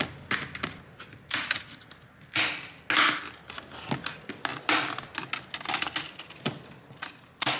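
Plastic retaining clips of a Lenovo IdeaPad 3 laptop's screen bezel popping loose as the trim is pried up, a string of irregular sharp clicks and snaps.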